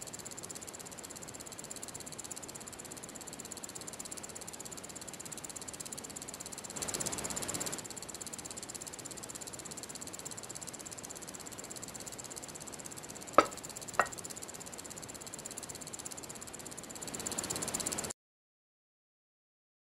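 Steady high-pitched chirring ambience with two sharp knocks about half a second apart in the middle. The sound cuts off to silence near the end.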